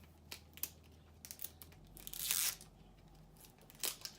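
Toy packaging being torn open by hand: wrapping tearing and crinkling in a string of short bursts, with one longer, louder tear about two seconds in.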